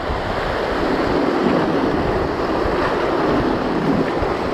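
Sea waves washing and breaking against shoreline rocks, a steady rushing surf, with wind buffeting the microphone.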